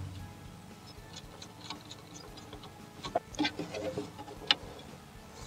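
Faint scattered ticks and clicks of a small screwdriver and wires being worked in the green screw terminal block of a CR310 datalogger, as a signal wire is fastened. A few sharper clicks come about three to four and a half seconds in.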